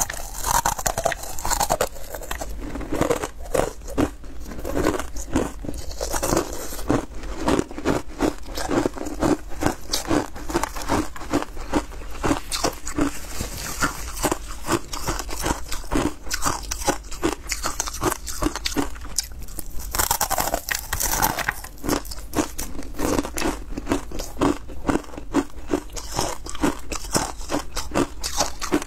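Ice chunks coated in matcha powder being bitten and chewed: a dense, continuous run of sharp, crackly crunches.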